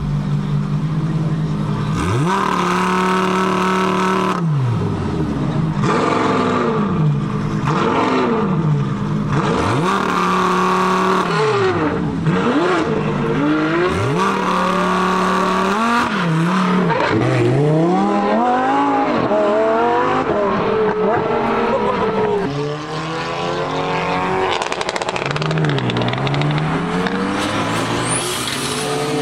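A high-performance car engine revving hard. Four times in the first half it climbs to high revs, holds there for a second or two and drops back. After that come a run of quicker revs and rising pulls.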